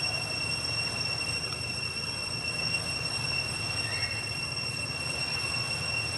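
A steady high-pitched whine, unchanging in pitch, over a constant low rumble.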